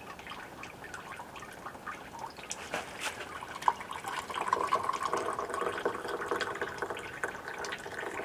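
Liquid pouring and dripping while espresso is being made, with small clicks and drips at first and a steadier pour from about halfway through.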